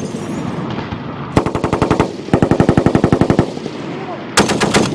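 M2 .50-calibre heavy machine gun firing from a tripod in three bursts, each a rapid, even string of shots. A short burst comes just under a second and a half in, a longer one of about a second follows straight after, and a third starts near the end.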